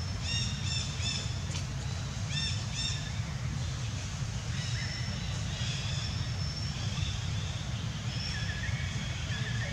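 Short high-pitched arched calls, three in quick succession about half a second in and two more near three seconds, followed later by thinner high chirps, over a steady low rumble.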